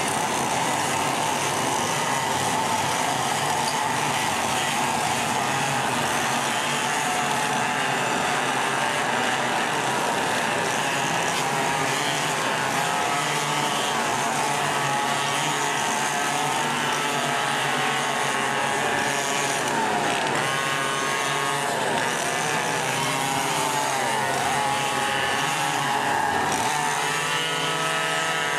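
Several go-kart racing engines buzzing at once without a break, their pitch rising and falling as the drivers come off and back on the throttle.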